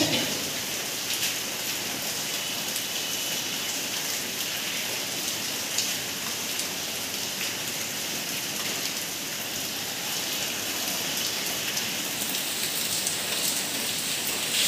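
A steady, even hiss of noise that holds at one level, with a few faint ticks.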